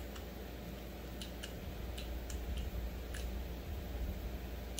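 Scattered light clicks, about eight at irregular spacing, from a screwdriver working the pulley inside a Husqvarna 272XP chainsaw's plastic recoil starter housing as the recoil spring is tensioned, over a steady low hum.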